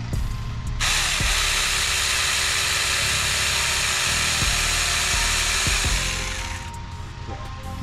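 Saker 4-inch battery mini chainsaw running and cutting through a sunflower stalk, a loud high-pitched whir that starts suddenly about a second in and dies away near the end.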